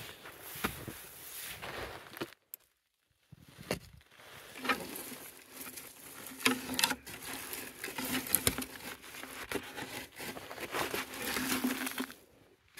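Rummaging through a tangle of snow-covered steel cable snares in a wooden box: cable rattling and scraping, snow crunching, with scattered sharp clicks. The sound cuts out completely for about a second, two and a half seconds in.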